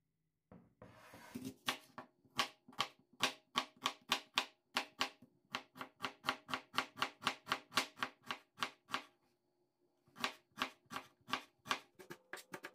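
A knife chopping rapidly on a cutting board, even strokes about three to four a second, with a brief pause near the end.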